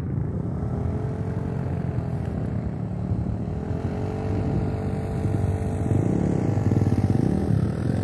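Motorcycle engine running, its pitch rising and falling several times as the throttle changes, growing louder toward the end.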